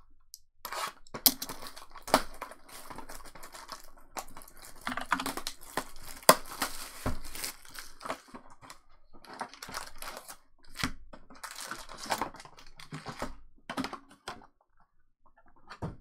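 Plastic shrink wrap being torn off a trading-card booster box, then the cardboard box opened and the foil booster packs handled, with irregular crinkling, rustling and tearing.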